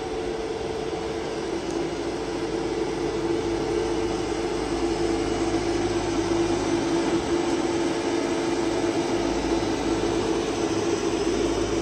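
Steady machine hum: an even drone with a few held tones, slowly getting a little louder.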